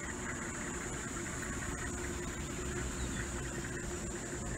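Safari vehicle's engine idling: a steady low rumble and hum, with a steady high-pitched hiss above it.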